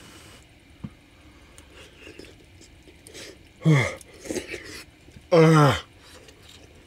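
A man eating a spoonful of chili that is too hot: quiet mouth and spoon sounds, then two loud wordless vocal cries with a falling pitch, about three and a half and five and a half seconds in, the second longer, as the hot chili burns his tongue.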